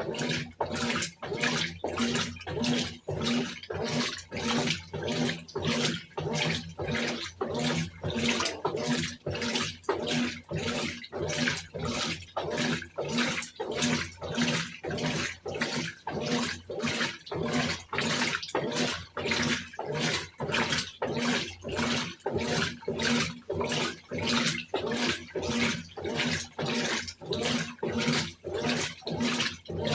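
Brastemp Tira-Manchas Advanced BWK17 top-loading washing machine agitating a load, its drum swishing the water back and forth in an even rhythm about twice a second over a steady motor hum.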